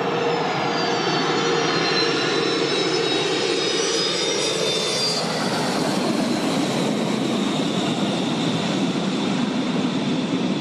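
Fokker 100 jet airliner's rear-mounted turbofan engines, landing and rolling along the runway: a steady loud roar with a high turbine whine that falls in pitch over the first five seconds as the jet passes.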